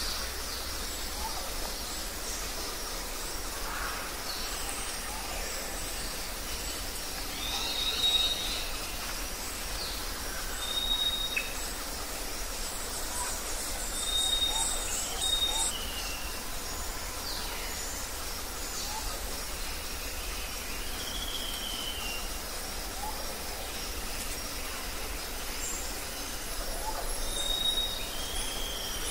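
Outdoor bush ambience: a steady hiss with wild birds giving short, high whistled calls every few seconds, some of them sliding down in pitch.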